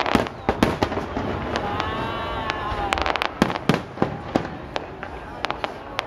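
Aerial fireworks shells bursting in a quick, irregular string of sharp bangs, at times several a second.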